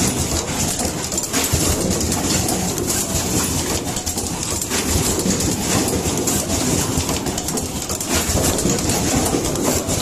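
Automatic power-cord crimping machine running, a steady, dense run of mechanical clicks and knocks from its fixture conveyor and crimping heads.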